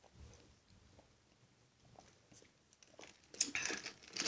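A person chewing food close to the microphone, faint at first, then louder, with clicky mouth sounds from about three seconds in.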